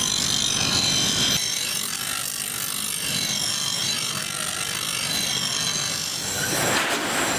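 Steel butcher-knife blade, forged from bearing steel, being ground against a motor-driven grinding wheel: a steady grinding hiss. It changes in tone about a second and a half in and swells briefly near the end.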